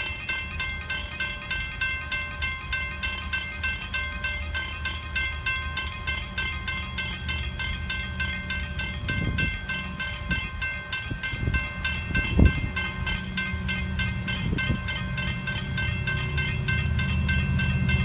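Level crossing warning bell ringing in fast, even strokes, about two or three a second. An approaching locomotive's low rumble grows louder over the last few seconds, and there is one sharp knock about twelve seconds in.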